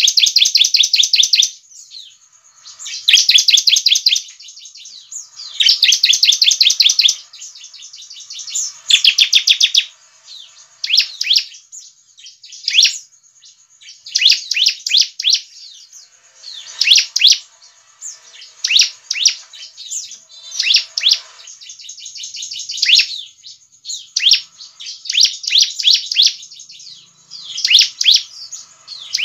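Bar-winged prinia (ciblek) calling: loud bursts of rapid, high trilled notes about a second long, four of them in the first ten seconds, then shorter quick phrases every second or two.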